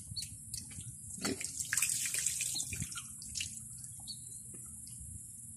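Birth fluid from a farrowing sow splashing and trickling onto the pen floor in irregular splatters and drips, busiest in the first half, over a steady high hiss.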